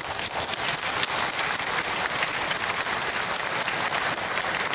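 Audience applauding: the dense, even clapping of many hands.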